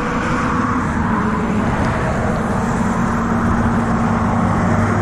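A motor engine running at a steady hum, with the wash of traffic around it.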